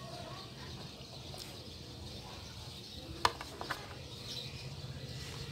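A metal spoon clicking against a waffle maker's plate: one sharp click a little past halfway, then two fainter ones, over a steady low hum and faint chirping.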